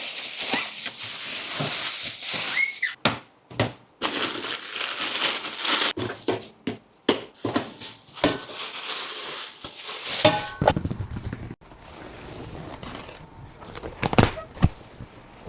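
Crinkling and rustling of packaging being handled, stopping and starting abruptly several times, quieter over the last few seconds.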